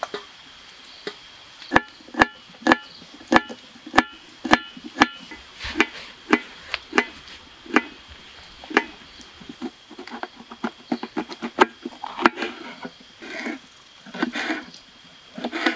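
Kitchen knife chopping vegetables on a wooden cutting board. The sharp strokes come about two a second at first, then less regularly, with quicker, lighter cuts near the end.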